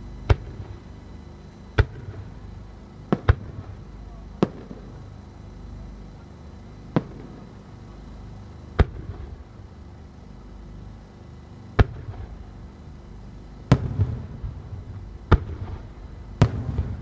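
Aerial firework shells bursting high overhead: about eleven sharp bangs at uneven intervals, with a low rumbling echo after the last few.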